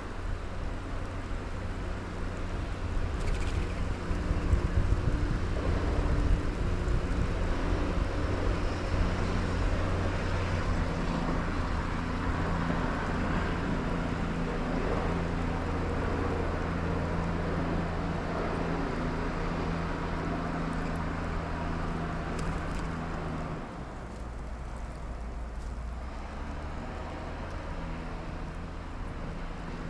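A steady low engine hum with a rushing noise over it, loudest early on and dropping off sharply about 23 seconds in.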